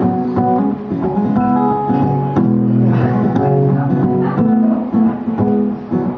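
Guitar playing the instrumental introduction to a song, a steady run of plucked notes and strummed chords.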